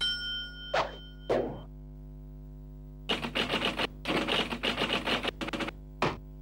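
Typewriter sound effect. A short ringing tone starts it off, then come two single key strikes, then fast bursts of typing from about halfway through, and a last hard strike near the end.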